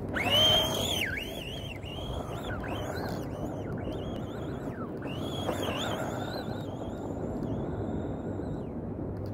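Tamiya Blitzer Beetle RC buggy's brushed Super Stock BZ electric motor on a 2S battery whining. It rises sharply in pitch as the buggy pulls away, loudest in the first second, then rises and falls with the throttle as it runs off across the sand. Near the end the whine holds one high pitch for a couple of seconds, then cuts off.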